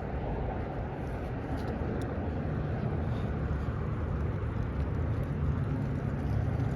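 Vehicle on the move: a steady rush of road noise with a low engine hum that comes in about halfway through and grows slightly louder.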